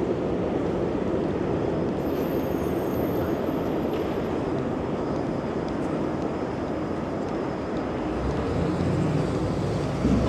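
Steady city street traffic noise. From about eight seconds in, a heavy vehicle's engine rumbles close by.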